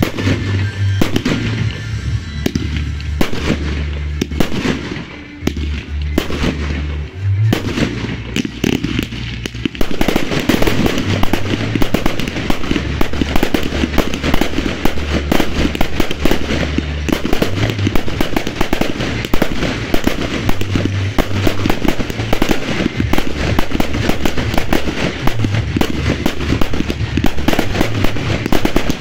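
Fireworks display: aerial shells going off in bangs and crackle over music with a repeating bass line. About ten seconds in it turns louder and much denser, a rapid barrage of bursts.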